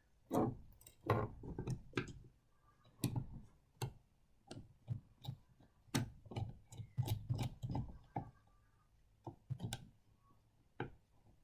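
Quiet, irregular small clicks and taps of a screwdriver and loose parts being handled while a screw is worked out of a vintage model train's bogie.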